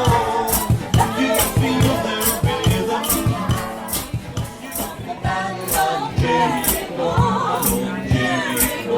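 Vocal trio singing in close harmony over guitar and bass, with a shaker or maraca keeping a steady beat about twice a second.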